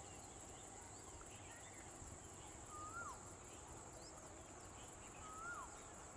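Faint wildlife ambience: a steady high-pitched insect drone, with a bird's whistled call twice, once about halfway through and once near the end. Each call is a short note that rises slightly and then drops.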